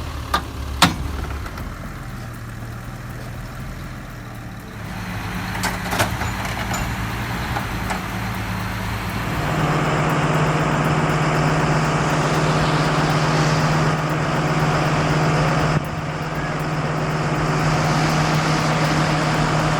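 Heavy vehicle engine running, louder and steadier from about halfway through, with a few sharp knocks in the first six seconds.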